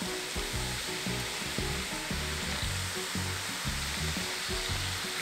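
Carbonated lemon-lime soda poured in a steady stream from a plastic bottle onto cabbage and brine in a glass container, with a continuous fizzing hiss. Soft background music with a steady beat plays underneath.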